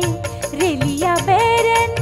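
Closing bars of a Hindi film folk song: a bending melodic line over steady drum beats, settling into a long held note near the end.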